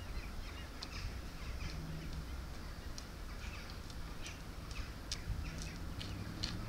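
Scattered short bird calls, crow-like caws among them, over a low steady rumble.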